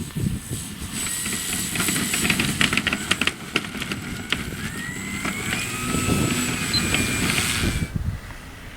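Radio-controlled model airplane landing: a steady rushing noise dotted with many rattles and knocks, and a motor whine that rises in pitch in the second half. The sound drops off sharply near the end.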